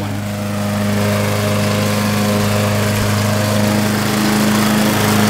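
Small engine running at a steady speed, a constant low drone.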